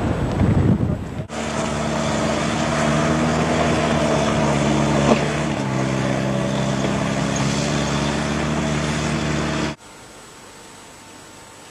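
Jeep engine running under load as it climbs a steep dirt slope: a steady drone that shifts pitch slightly about halfway through and cuts off suddenly near the end. Wind noise comes before it at the start.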